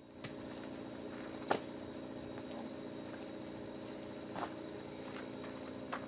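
A motor running steadily, a constant hum at an even pitch, with two light clicks, one about a second and a half in and one past the middle.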